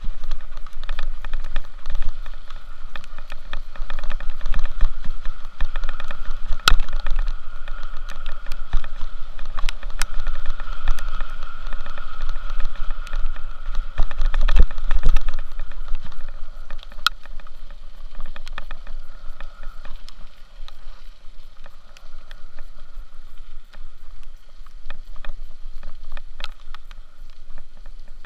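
Steady road and wind noise from a moving vehicle, with a heavy low rumble and frequent sharp rattles and knocks, easing off somewhat after about 16 seconds.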